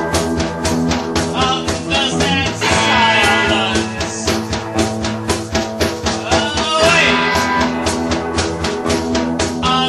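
Band music from the 1980s: a singer over guitar and a steady drum beat, with the vocal phrases coming and going.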